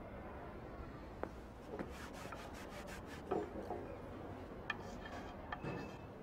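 Dry rubbing as chalk writing is wiped off a chalkboard, about two to three seconds in. Near the end comes a quick run of sharp clicks and scratches of chalk writing on the board.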